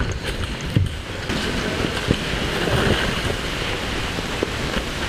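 A person moving quickly over dry leaf litter: rustling and footfalls, with steady rumbling noise on a body-worn camera's microphone and a couple of sharp knocks.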